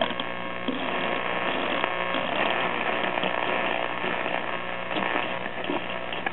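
1936 RCA Victor 5T1 tube radio's speaker giving a steady hum under static and faint whistles as its dial is tuned across the shortwave band between stations.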